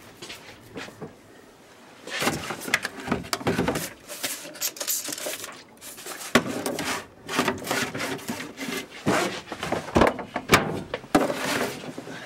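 Someone rummaging through a closet, shifting and knocking objects about: a run of knocks, scrapes and rustling that starts about two seconds in.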